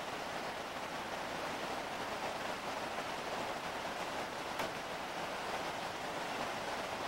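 Steady rush of whitewater river rapids, an even, unbroken roar of water. A single faint click sounds a little over halfway through.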